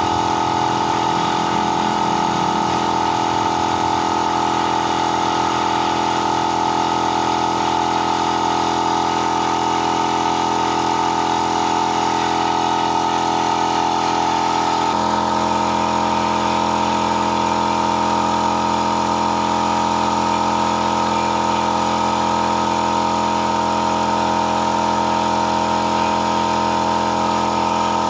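A machine running steadily with a constant hum; its tone changes abruptly about halfway through and then holds steady again.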